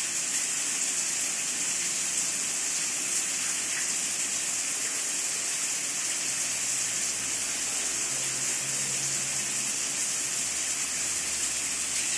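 A steady hiss of rushing water, even in level throughout, with a faint low hum joining about halfway through.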